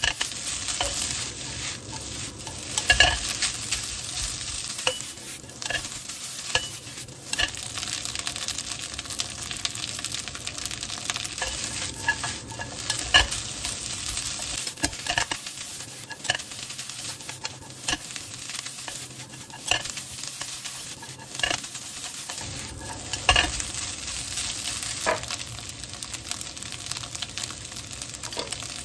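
Fried rice ingredients sizzling in a hot pan while being stirred, with a steady hiss and irregular scrapes and knocks of the utensil against the pan, a few of them louder.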